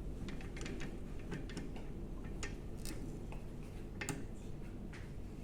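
Scattered light clicks and taps, irregularly spaced, as a 6-iron is handled and seated in a loft and lie measuring machine, over a low steady background hum.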